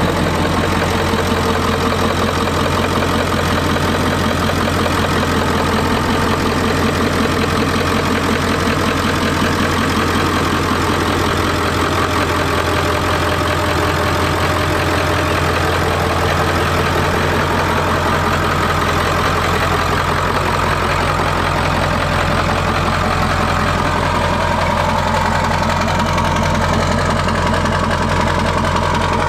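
1996 Ford F-250's 7.3 L Powerstroke turbo-diesel V8 idling steadily.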